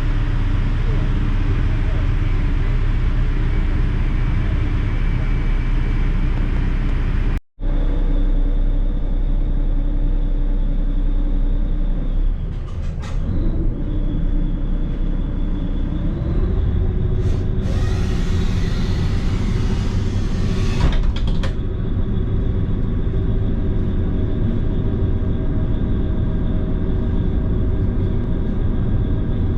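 Passenger ferry's engines droning steadily aboard, with a steady pitched hum over a deep rumble. The sound drops out for an instant about seven seconds in, the drone shifts in pitch around the middle, and a rushing hiss rises over it for about four seconds.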